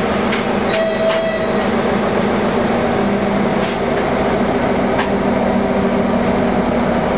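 TEP60 diesel locomotive's two-stroke V16 diesel engine running steadily, heard from inside the driver's cab. A few sharp clicks from the controls sound over it, the loudest near four seconds in.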